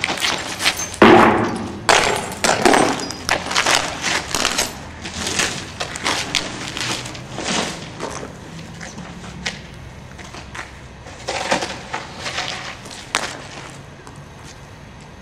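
Broken glass crunching and clattering in a run of irregular sharp crunches that thins out after about eight seconds, with a few more a little past eleven seconds.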